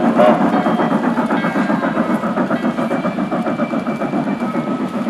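Freight cars of a G-scale garden railway train rolling past close by: a steady, rapid clatter of the small wheels over the track.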